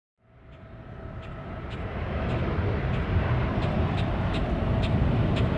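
Jet aircraft noise fading in over the first two seconds, then a steady rumble with a held whine and faint ticks about twice a second.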